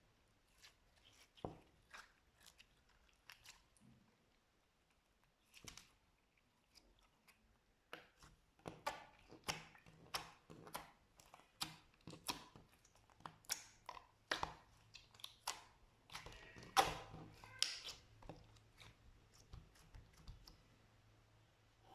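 Slime being worked, giving sharp, wet clicks and pops. They are sparse at first and come in a quick, dense run from about eight seconds in.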